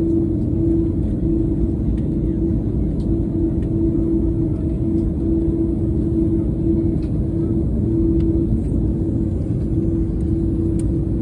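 Steady rumble of an airliner's engines and airflow heard inside the cabin, with a constant hum that wavers slightly in strength.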